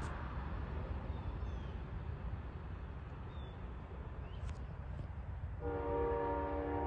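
Low rumble of wind and passing road traffic, then about five and a half seconds in an Amtrak locomotive's horn starts sounding a steady chord of several notes, held on past the end.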